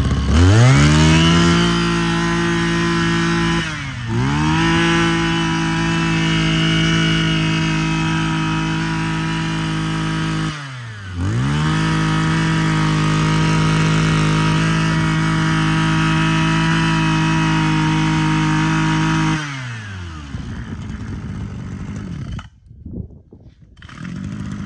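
Mitsubishi TL261 26cc two-stroke brush cutter engine revving quickly up to high speed and held there. Its speed drops briefly and picks back up twice, about 4 and 11 seconds in. Near the end it winds down and stops.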